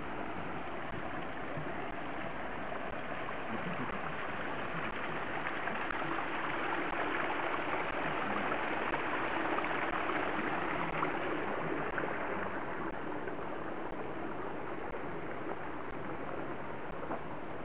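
Water running down a small rock cascade: a steady rushing that swells louder about halfway through, then eases off again.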